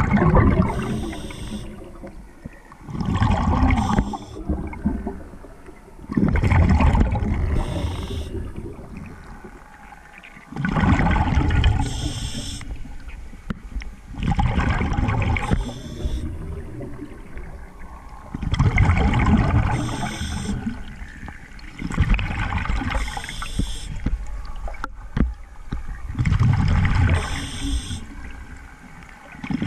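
A scuba diver breathing through a regulator, heard underwater. About every three to four seconds comes a loud burst of exhaled bubbles, and with most breaths there is a short high hiss of the regulator.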